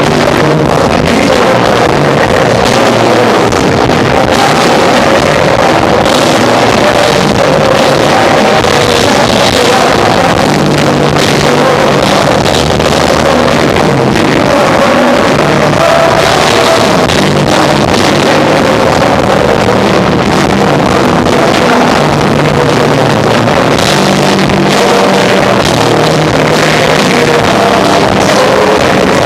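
A live rock band of electric guitar, bass guitar and drums plays loudly and without a break, with a stepping bass line and constant drum hits. The recording is poor: steadily loud and saturated throughout.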